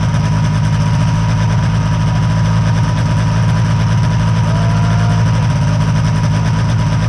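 An engine idling steadily: a low, even drone that holds pitch and level throughout.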